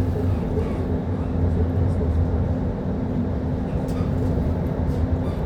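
Steady low rumble and hum of a moving passenger train, heard from inside the carriage.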